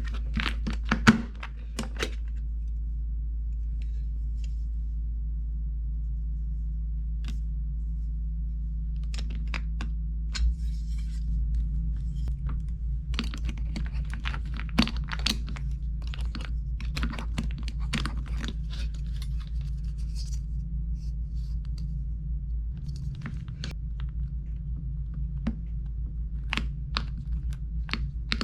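Irregular plastic clicks, taps and scrapes from keycaps being handled on a mechanical keyboard during a keycap swap, sparse at first and coming thick and fast in the second half, over a steady low hum.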